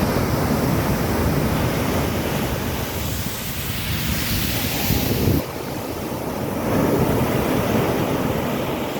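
Mediterranean surf breaking and washing up on a beach, a steady rushing that swells and ebbs, with wind buffeting the microphone. The rush drops abruptly about five seconds in and builds again near the end.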